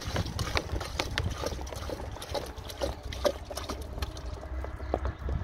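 Sugar syrup glugging out of an upturned plastic bottle into a beehive feeder, as air gurgles up into the bottle in a quick, irregular string of glugs.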